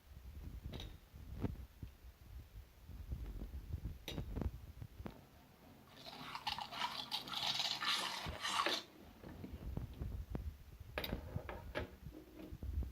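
Wet, sticky clicks and squishes of slime being handled, with scattered single pops and a denser crackly squelching stretch of about three seconds in the middle.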